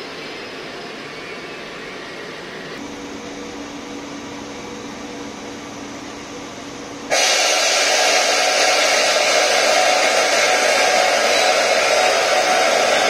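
A steady background hum with a faint low tone. About seven seconds in, a loud, even rushing hiss of air starts suddenly and keeps going.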